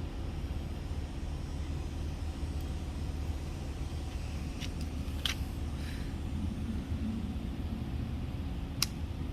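Steady low rumble of a vehicle engine running nearby, with two sharp clicks, about five and nine seconds in.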